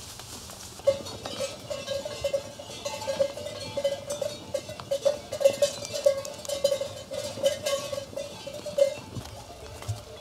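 Bells on a walking flock of sheep, clanking irregularly as the animals move; the bells start about a second in and stop near the end.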